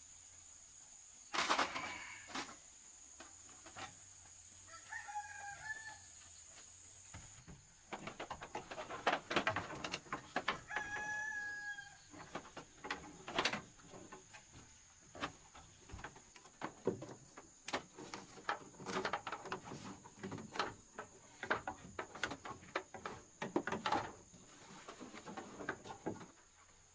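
Irregular knocks and clatter, densest a third of the way in, with a short pitched bird call about five seconds in and again about eleven seconds in; a steady high whine runs underneath.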